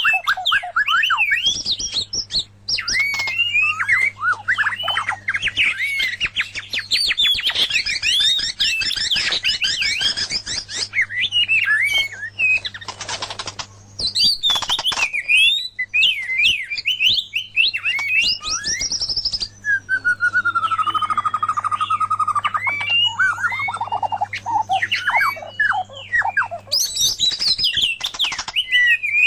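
White-rumped shama and oriental magpie-robin singing without pause in fast, varied whistled phrases, with a long slowly falling whistle about two-thirds of the way through. A steady low hum runs underneath.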